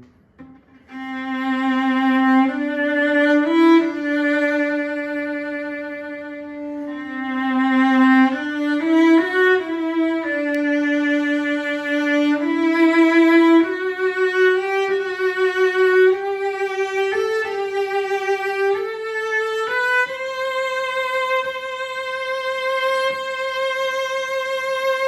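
A 2003 Gliga cello played solo with the bow: a slow melody in its upper register, stepping upward after a brief pause and ending on a long held high note that stops near the end.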